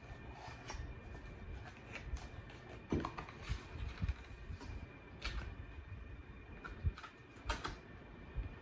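Scattered light clicks and taps of small plastic items being handled, at irregular intervals; the sharpest knocks come about three seconds in and again near seven and a half seconds.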